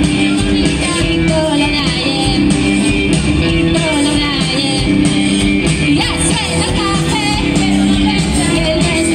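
A live rock band playing loud through a PA: electric guitars over a drum kit.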